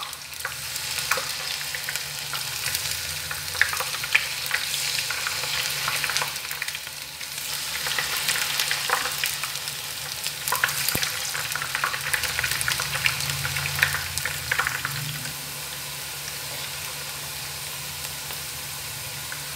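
Thin slices of raw green banana deep-frying in hot oil in a frying pan, sizzling with many sharp crackles as fresh slices go in and are stirred. After about 15 seconds the crackle settles into a quieter, steadier hiss.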